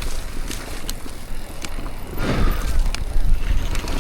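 Mountain bike descending a dry, loose dirt trail: tyres rumbling and crunching over the ground, with sharp rattles and clicks from the bike and a louder rush of tyre noise about two seconds in.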